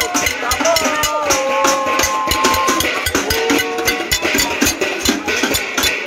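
Pots and pans banged rapidly in a protest, a dense clatter of strikes many times a second, with a few long held calls sounding over it.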